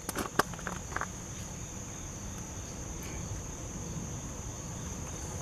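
Steady high-pitched chirring of crickets in the woods, with a few light clicks in the first second.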